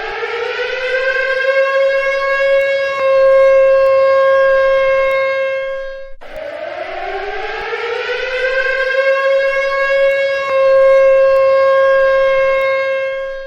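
Civil defense siren sounding in repeated wails: each rises in pitch over a couple of seconds, holds a steady tone, then breaks off and starts climbing again, twice here. It is the siren of a nuclear attack warning.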